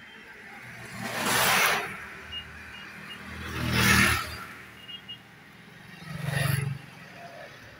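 Three vehicles passing close by in traffic, each a whoosh with a low engine hum that swells and fades over about a second: one near the start, one about halfway, one near the end.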